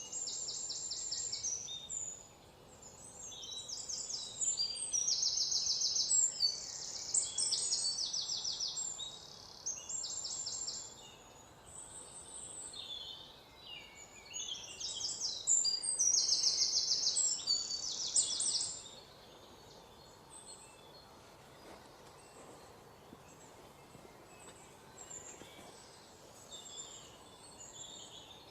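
Birds singing: short bursts of rapid high trills, one after another, which fall away about two-thirds of the way through to faint scattered calls.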